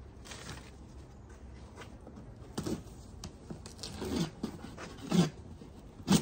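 Handling noise from plant plug trays in a cardboard shipping box: a few short scrapes and rustles about two and a half, four and five seconds in, the loudest right at the end.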